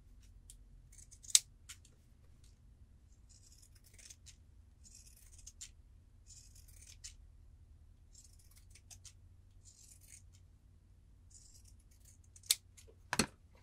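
Scissors snipping into the curved seam allowance of a sewn fabric pillow: about seven short, soft cuts a second or so apart, so the curves lie smooth when turned. A sharp click of the blades about a second in and a knock near the end.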